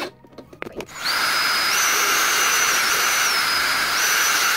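Power drill with its bit in a thin plastic storage-bin lid. After a few short clicks, about a second in, it starts and runs steadily with a high whine whose pitch steps up and down slightly. It cuts off abruptly at the end.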